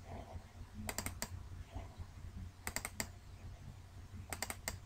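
Computer mouse buttons clicking in three quick runs of three or four clicks each, a little under two seconds apart, over a faint low hum.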